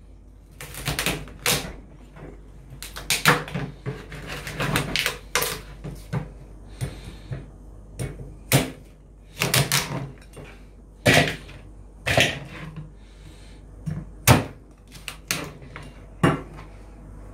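Meat cleaver chopping a mud crab on a wooden chopping board: a long series of irregular heavy knocks, some in quick clusters of two or three.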